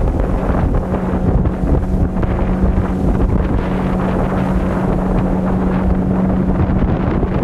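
A 15 hp outboard motor running steadily under way, with a steady hum, and heavy wind buffeting the microphone over rushing water.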